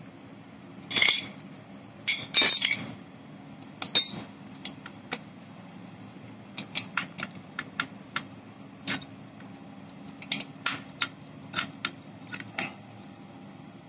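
Metal clinks and clicks of a nut and ring spanner on the solenoid terminal stud of an Eicher tractor's starter motor. Two louder clatters come in the first few seconds, then a run of light, irregular clicks as the spanner works the nut.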